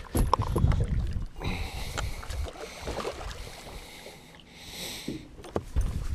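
Irregular low rumbles, scuffs and knocks of someone moving about a fishing boat and handling rods, loudest just after the start, with a short hiss about five seconds in.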